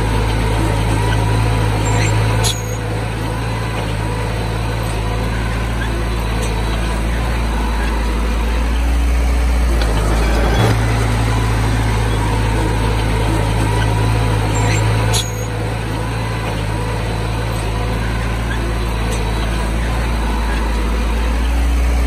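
Bulldozer's diesel engine running steadily under load. Its pitch and level shift, dropping twice with a sharp click and picking up again between.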